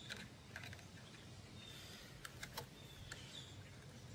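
Faint, scattered small clicks and taps of hand work on a motorcycle's rear brake reservoir as it is being removed, with a couple of faint short high chirps behind them.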